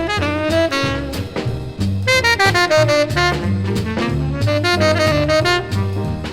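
1955 hard-bop jazz quintet (trumpet, tenor saxophone, piano, bass and drums) played from a vinyl LP: a horn plays a fast run of notes over a stepping bass line and drums.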